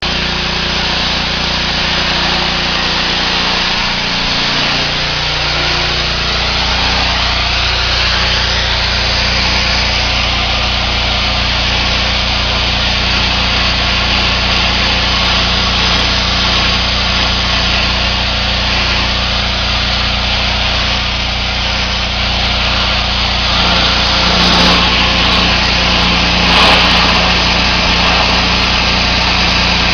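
Pressure washer running: a steady engine hum under the constant hiss of high-pressure water spray, the spray growing louder near the end.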